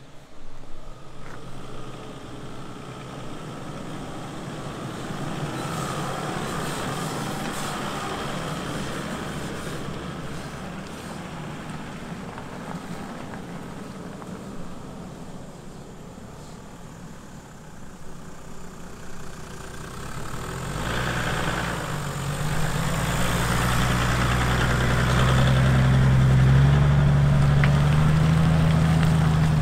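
Toyota Land Cruiser 100-series 4.2-litre turbodiesel working under load as it climbs a rutted mud track. It grows much louder about two-thirds of the way in, its pitch stepping up as it revs.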